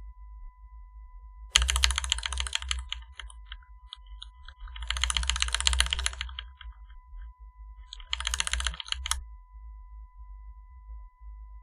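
Mechanical keyboard with factory-lubed NovelKeys Silk Black linear switches and GMK keycaps being typed on in three quick bursts of rapid keystrokes, with short pauses between them.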